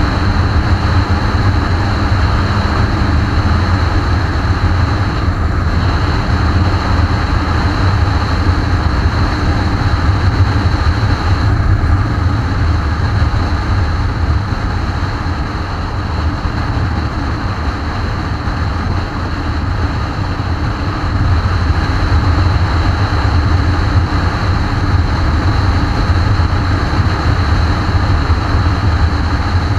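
Motorcycle cruising at steady speed: constant wind rush over a bike-mounted microphone with the engine's drone underneath.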